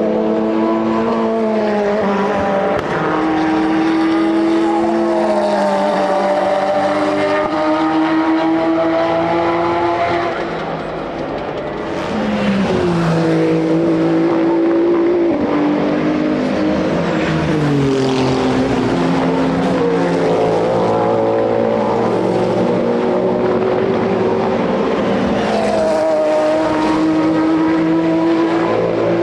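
Several race cars passing at speed one after another. Their engines rise and fall in pitch and step through gear changes, with a short lull about two-thirds of the way through the first half before the next cars arrive.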